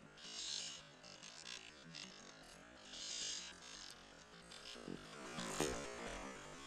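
Soft background music with a synthesizer or keyboard sound, under two brief hissy swishes and one sharp hit near the end.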